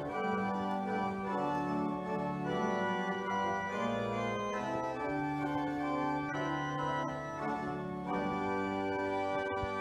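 Organ playing the introduction to a hymn: slow, sustained chords that change about once a second.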